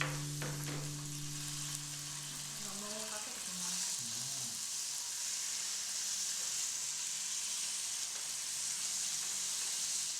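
Food sizzling in a hot frying pan, a steady high hiss.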